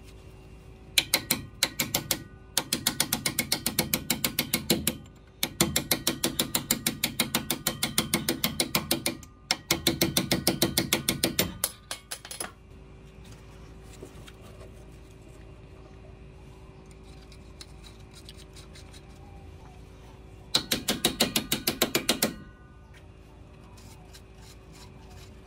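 Hand ratchet clicking rapidly in quick, even runs as it spins out the rear strut's lower mounting bolts: four long runs over the first twelve seconds, then one shorter run about twenty-one seconds in.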